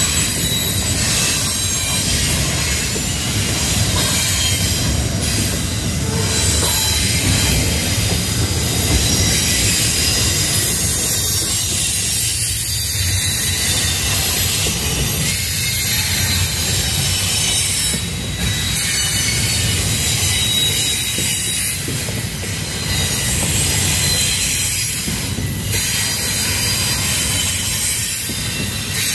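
Freight train's intermodal container cars rolling past, wheels squealing with steady high-pitched tones over a low rumble of the cars, with a few brief knocks spread through.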